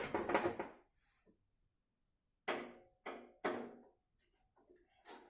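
Hard objects being handled and knocked together, like PC case parts and tools on a work surface. A short clatter at the start, then three sharp knocks about half a second apart, and a few faint ticks and one more knock near the end.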